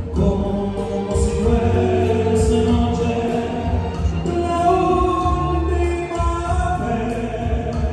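Male singer performing live into a microphone, holding long notes over amplified backing music with a steady bass.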